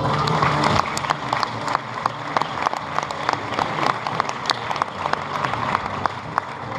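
Audience applauding, a dense patter of many hands clapping that tapers slightly toward the end; the show music cuts off about a second in.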